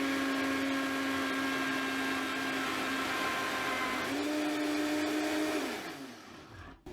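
Vitamix blender motor running at speed, blending thick bean soup to a cream, with a steady whine over a rushing hiss. The pitch shifts about four seconds in, then the motor is switched off and winds down with a falling whine near the end.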